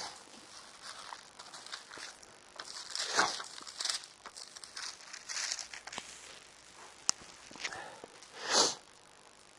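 Soft rustling and scuffing picked up by a clip-on lapel microphone: a few separate rustles, a sharp click about seven seconds in, and the loudest rustle near the end.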